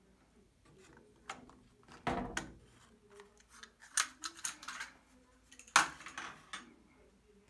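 Mechanical clicks and clunks from a Sansui SC-1110 cassette deck's transport keys and cassette compartment: a heavier knock about two seconds in, a quick run of clicks around four seconds, and a loud click with a short rattle near six seconds, as the cassette is taken out.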